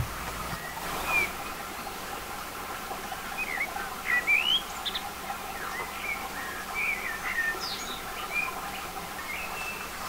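Small birds singing: scattered short chirps and whistled notes that rise and fall, over a steady background hiss.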